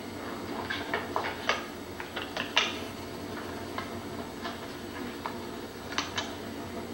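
Scattered light clicks and clinks of small hard objects being handled, irregularly spaced and sharpest about two and a half seconds in and again near six seconds, over a steady background hum.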